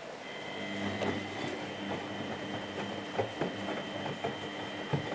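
Miele Hydromatic W734 washing machine's motor starting up and turning the drum: a steady whine comes in just after the start, with irregular knocks from inside the machine. The owner finds its motor bearings a little loud.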